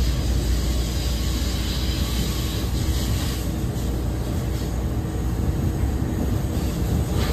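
NJ Transit passenger train running, heard from inside the coach: a steady low rumble of wheels on rail with a faint steady hum.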